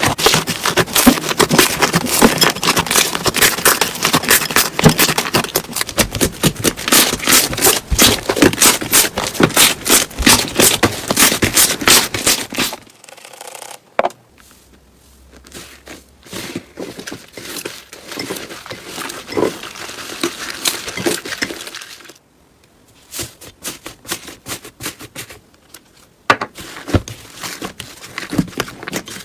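Slime being squeezed and worked by hand, giving dense crackling and popping for about the first half, then an abrupt change to quieter, sparser pops and squishes, with scattered clicks again near the end.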